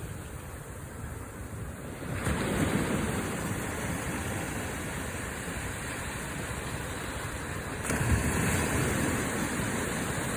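Small waves breaking and washing up a beach. A surge of surf comes in about two seconds in and another about eight seconds in, each easing back into a steady wash.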